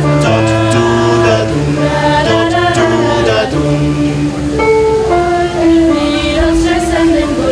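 Mixed youth choir singing in several parts, holding sustained chords that change every second or so, with low male voices underneath the higher female voices.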